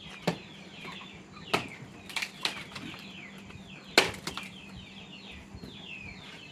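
Several sharp knocks, like wood or bamboo being struck, with the loudest about four seconds in. Behind them, birds chirp steadily: quick, high, falling notes.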